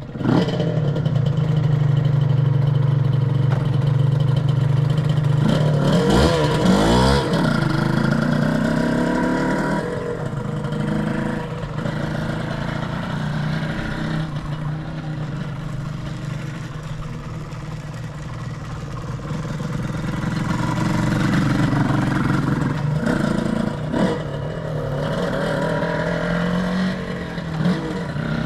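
Suzuki RGV Gamma 250 SP's two-stroke V-twin running through Sugaya street expansion chambers, revving up and down with the pitch rising and falling, most sharply about six to seven seconds in. The engine, a replacement unit, runs without abnormal noises.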